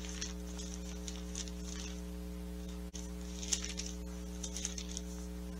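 Thin Bible pages being leafed through and rustling in short, irregular soft bursts, over a steady electrical mains hum.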